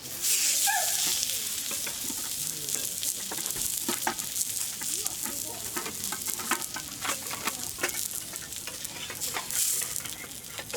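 Food sizzling on a hot pan or grill plate, a steady hiss that starts abruptly, with many small crackles and spits through it.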